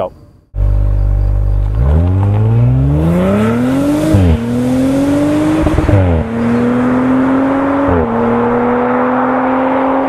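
Audi RS4 Avant (B9) 2.9-litre twin-turbo V6 accelerating hard through the gears. The engine holds a steady note for about a second, then the pitch climbs, drops briefly at each of three upshifts, and climbs again.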